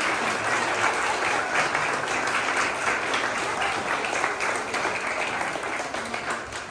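Applause from a choir of a few dozen singers clapping together, dying away near the end.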